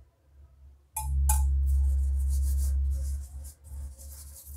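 Butter paper, greased with ghee, rustling as it is rubbed and smoothed by hand on a wooden board. A loud low rumble from the hand pressing on the board starts about a second in and lasts about two seconds.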